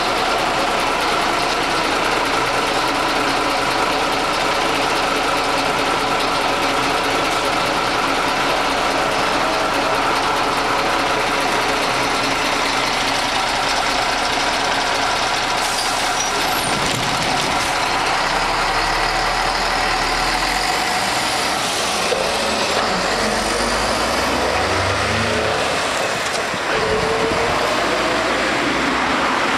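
Ikarus 280.03 articulated bus's diesel engine idling at the stop, then, about halfway through, pulling away and accelerating through its manual gearbox, the engine note rising with each gear.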